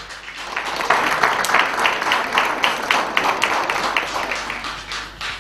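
Audience applause: many hands clapping, swelling about half a second in and dying away near the end.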